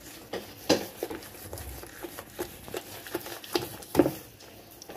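Butter, sugar and egg dough being stirred and worked in a glazed clay bowl: irregular soft scraping and tapping against the bowl, with sharper taps about a second in and again near the end.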